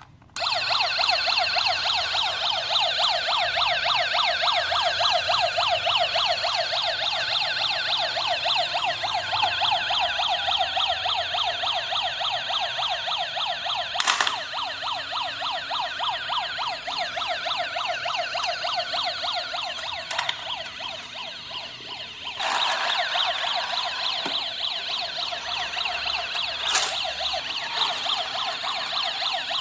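Toy police car's electronic siren playing through its tiny speaker: a fast, warbling, tinny wail that starts about half a second in and switches to a different pattern about 22 seconds in. Two sharp clicks come partway through.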